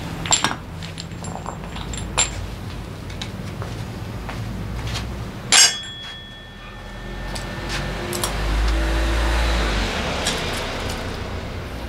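Metal clutch parts of a Honda PCX 125 scooter clinking as they are handled, with one loud metallic clank about halfway through that rings briefly. A low rumble swells in the background near the end.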